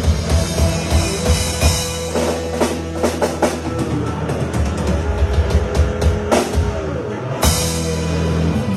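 Rock music led by a drum kit playing busy, rapid strokes over held bass notes. A brief break comes about seven seconds in, followed by one loud full-band hit.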